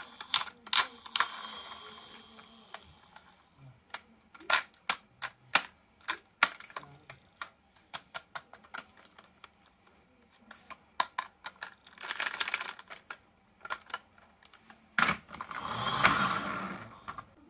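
Sharp hard-plastic clicks and taps, irregular and scattered, from a plastic toy dump truck being handled. A short rushing scrape comes about twelve seconds in, and a longer one swells and fades near the end.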